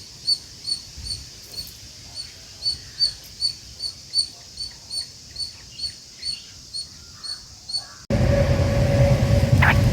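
A bird repeating one short, high chirp about two and a half times a second. About eight seconds in, it cuts off abruptly and loud, steady, rumbling noise with a hum takes over.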